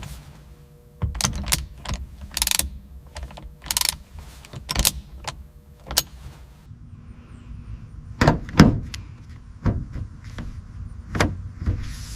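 Irregular series of sharp knocks and clicks, many in a row with the loudest a little past the middle, over a low steady hum.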